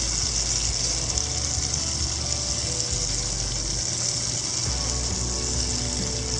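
Soft background music with held notes over a steady high hiss.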